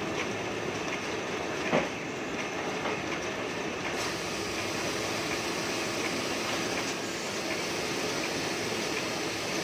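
Heidelberg GTO 52 sheet-fed offset press running, a steady mechanical clatter with faint regular ticks. There is one sharper knock about two seconds in, and a higher hiss joins about four seconds in.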